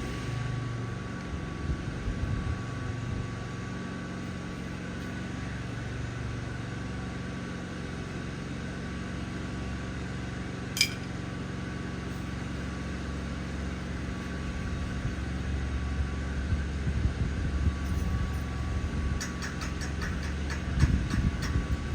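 Steady mechanical hum with a faint steady whine above it. There is one sharp click about halfway through and a few quick ticks near the end.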